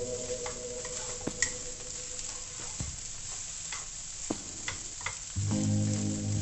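Rice and scrambled egg sizzling in a hot nonstick wok while a wooden spatula tosses and presses them, giving irregular scrapes and taps against the pan.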